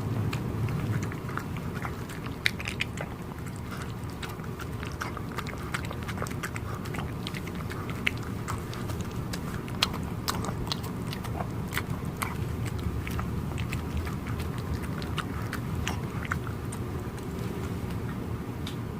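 Dogs eating boiled liver and cabbage: irregular wet chewing and biting clicks throughout, over a steady low background noise.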